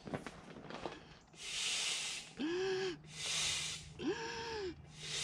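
An inflatable boat being pumped up by hand: rhythmic hissing rushes of air, about one every one and a half seconds, with a short squeak or groan rising and falling in pitch between two of the strokes.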